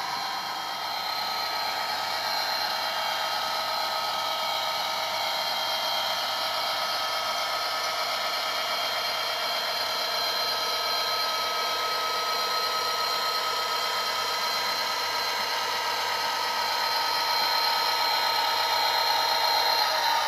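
OO gauge model of an NIR class 111 diesel locomotive running, its Zimo sound decoder playing the recorded EMD diesel engine sound through the model's small speaker: a steady engine note with a high whine. The pitch drops near the end.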